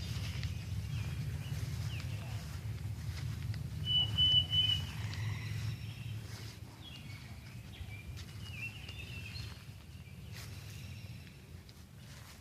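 Birds calling over a steady low rumble. The loudest is a short, bright, pulsing call about four seconds in, followed by scattered chirps.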